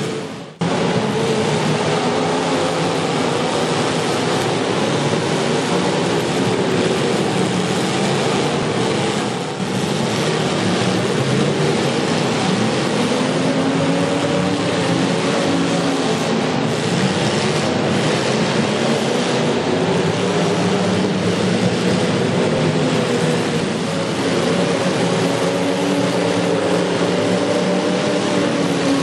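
Demolition derby cars' engines running and revving together, a loud steady din whose engine tones rise and fall. There is a brief dropout just after the start.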